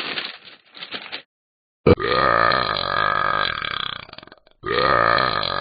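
Two long, deep burps: the first starts about two seconds in and lasts over two seconds, the second begins just after it ends. A short crackling noise comes before them.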